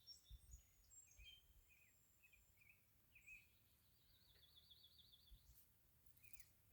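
Faint birdsong over near silence: scattered chirps and short whistles from several small birds, with a quick trill of repeated notes about four seconds in. A few soft low thumps lie underneath.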